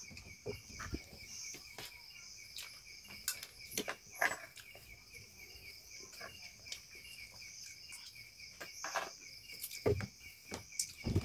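Crickets chirping steadily at night in a high, pulsing chorus. Now and then a soft click or tap.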